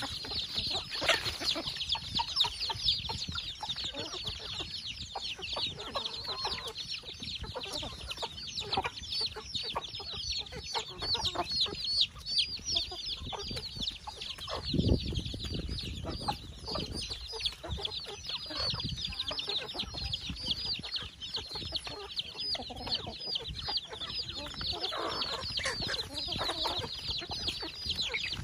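Domestic chickens feeding as a flock: many chicks peeping in a constant chorus of short high-pitched cheeps, with hens clucking among them. A brief low thump comes about halfway through.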